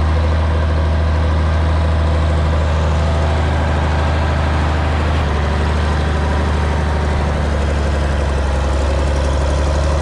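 Diesel engine of an M923 5-ton 6x6 army cargo truck running steadily at low speed, a deep, even engine note that shifts slightly about halfway through.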